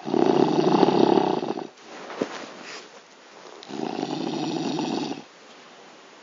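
A man snoring loudly in his sleep: two long snores of about a second and a half each, with a softer breath between them.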